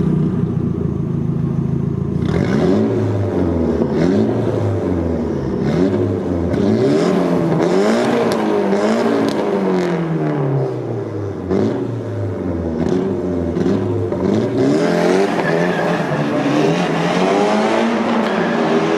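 Nissan CA18DET 1.8-litre turbocharged four-cylinder engine idling briefly, then revved up and down again and again in quick blips, with longer rising revs near the end.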